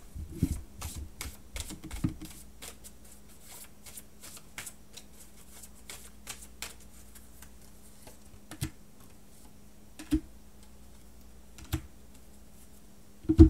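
A deck of oracle cards being shuffled in the hands: a quick run of crisp card clicks for the first few seconds, then sparser clicks. Later come four separate sharper taps as cards are laid down on the table, the loudest near the end.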